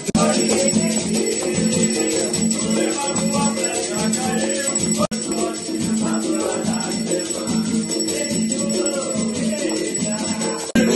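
Afro-Brazilian devotional music: voices singing a chant over a quick, steady shaking of rattles. The sound drops out for a moment about halfway through and again just before the end.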